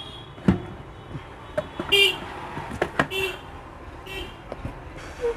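A few sharp clicks and knocks from the opened home theater unit's plastic casing being handled, with several short vehicle horn toots in the background.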